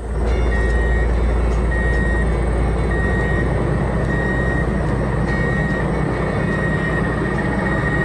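A heavy vehicle's engine running steadily, with a reversing alarm beeping about once a second; near the end the beeps run together into one held tone.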